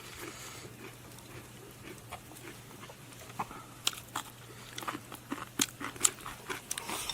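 People chewing crunchy stir-fried duck gizzards, with sharp little crunches and clicks that come more often from about three seconds in.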